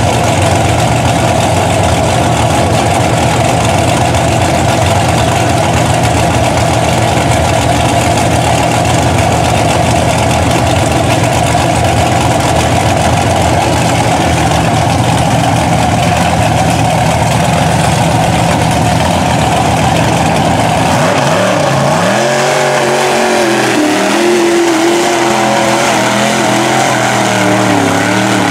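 Big mud-truck engines running steadily at a high idle, then from about three quarters of the way in an engine revs up and down again and again as a truck works through deep mud.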